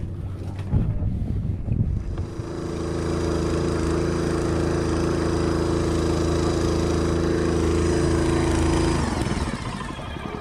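A couple of knocks, then a small petrol engine driving a wooden outrigger boat through a long propeller shaft comes up to speed about two seconds in. It runs steadily, then is throttled back near the end.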